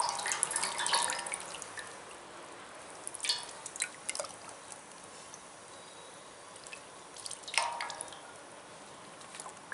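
Water splashing and dripping as goat intestines are squeezed and lifted out of a steel bowl of rinse water, in a few short bursts: at the start, around three seconds in, and again about seven and a half seconds in.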